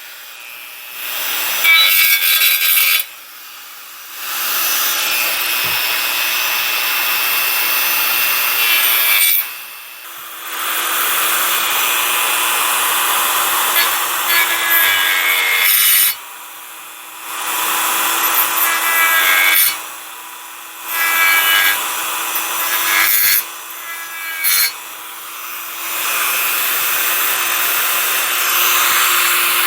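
Dremel rotary tool running steadily with a fluted cutting bit, grinding down raised lettering on a metal drill-press head casting. The bit bites in repeated passes of a few seconds each, with short pauses where only the motor's steady whine remains.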